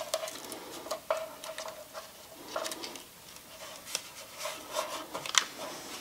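Hands applying a vinyl decal to a small engine's sheet-metal shroud: soft rubbing and paper handling as the sticker is pressed down and smoothed, with a few light clicks and taps.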